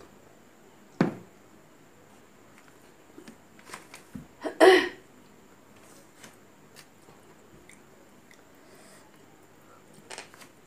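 Close-up eating sounds: quiet chewing and small mouth clicks, with fingers picking food off a steel plate. A sharp knock about a second in, and a short louder burst of noise about four and a half seconds in.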